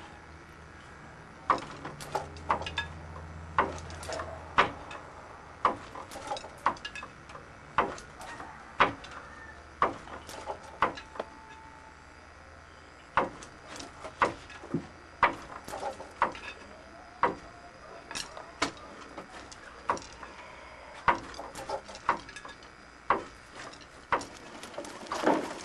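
Wooden frame handloom at work: a steady run of sharp wooden knocks, about one or two a second and often in pairs, as the weaver works the loom and beats in the weft.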